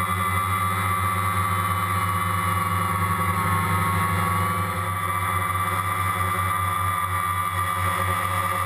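Multirotor drone's electric motors and propellers humming steadily in flight, a whine with several steady pitches that waver only slightly.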